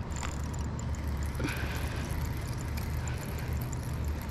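Spinning reel being wound as a hooked fish is played, giving faint, even ticks about three to four a second over a steady low rumble of wind on the microphone.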